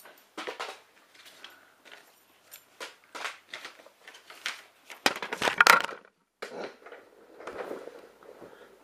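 Paper crinkling and rustling as paper planes are handled and thrown. About five seconds in comes a louder jumble of knocks and clatter as the camera is knocked off its stand into a lamp.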